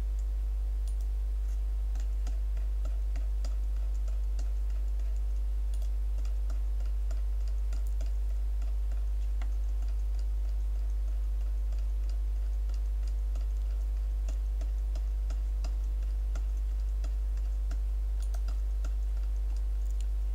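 Steady low electrical hum under faint, irregular clicks of computer input, several a second at times, as a value is stepped up in the software.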